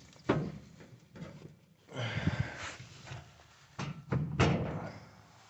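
A few knocks and thuds of top-load washing machine parts being handled, with a scraping rustle about two seconds in and two louder knocks near the end.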